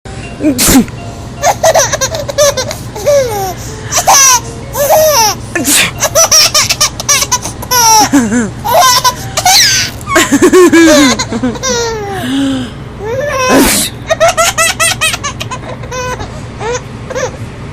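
A baby laughing in many quick runs of high-pitched giggles, with short pauses between fits.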